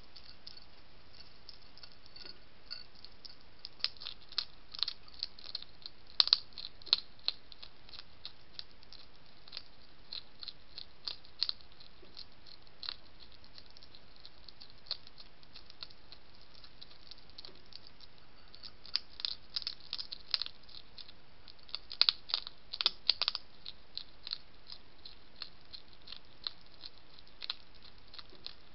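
European hedgehog chewing and crunching food from a plate: sharp crackly clicks that come thick in two busy spells, about four seconds in and again past the middle, with scattered clicks between, over a steady faint hiss.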